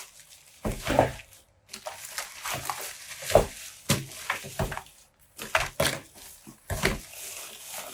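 Irregular small clicks, taps and scrapes of hard parts being handled, typical of tools and parts on a phone during a repair.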